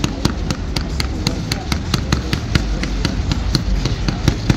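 Fireworks going off in a rapid string: sharp cracks about four a second over a continuous low rumble of bursts.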